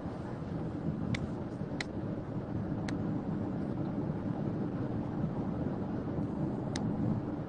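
Steady road and engine noise inside a moving car's cabin, with a few faint clicks.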